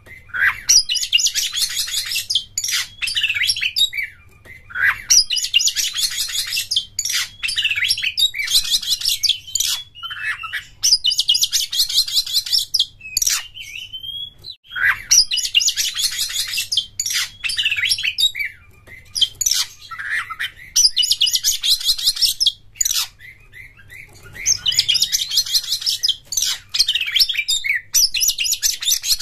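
Oriental magpie-robin (kacer) singing hard: one-to-two-second phrases of rapid, dense high notes and trills with short gaps between them, and a couple of brief breaks in the song.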